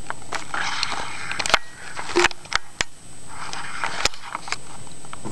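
Hamster sniffing and rustling right at the microphone: two spells of hissy sniffing noise with many sharp clicks and crackles between them.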